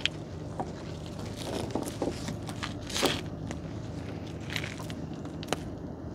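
Monofilament gill net rustling and crackling as a fish is worked free of the mesh by hand. Scattered sharp clicks and knocks run through it, the loudest about three seconds in, over a faint steady low hum.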